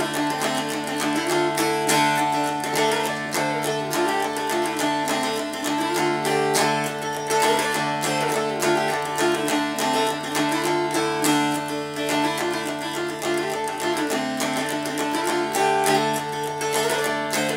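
Mountain dulcimer in DAC tuning, strummed with a pick, playing a lively fiddle tune: a moving melody over drone strings ringing steadily underneath.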